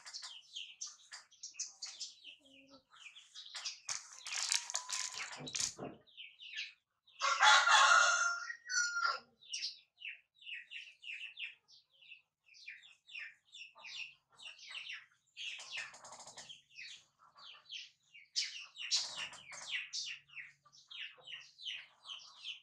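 Small birds chirping again and again, with a chicken giving a louder, longer call about seven to eight and a half seconds in. A brief rustling burst comes a few seconds earlier.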